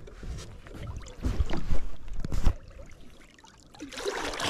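A flathead catfish splashing and thrashing at the water's surface as it is lowered in on a lip gripper and released, starting near the end. A few dull knocks come before it.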